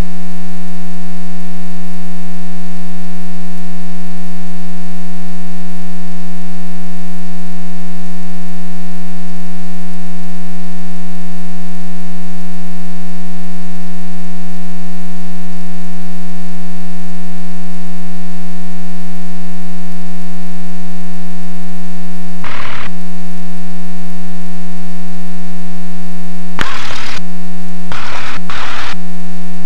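Loud steady electrical hum with a buzzy, many-overtone tone, broken by a short burst of static about 22 seconds in and three more bursts near the end.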